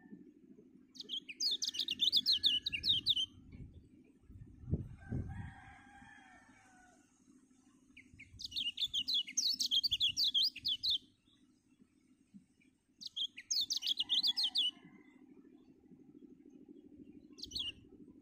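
A white-eye (kecial) singing three bursts of rapid, high chirping notes, each lasting two to three seconds, with a short fourth burst near the end. A lower, rougher call comes about five seconds in, over a steady low hum.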